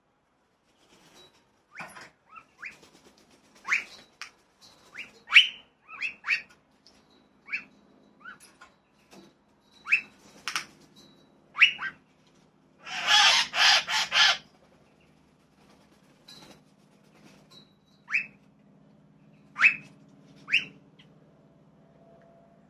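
Birds calling: short sharp chirps and whistles every second or so, with a loud harsh run of squawks about 13 seconds in.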